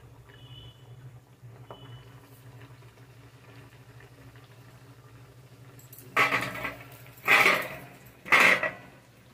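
Stainless-steel spatula and steel plate clattering together three times as fried kachoris are moved from the kadai onto the plate, loud metallic clinks about six, seven and eight seconds in.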